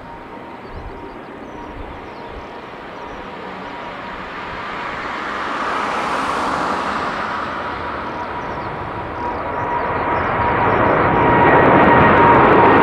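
Boeing 787-8's two GE GEnx turbofan engines at takeoff thrust, growing steadily louder as the airliner lifts off and climbs toward the listener, with a steady high whine running through the jet noise.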